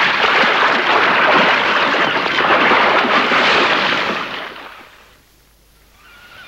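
Splashing water of someone swimming, a dense, even splashing that fades out about four and a half seconds in.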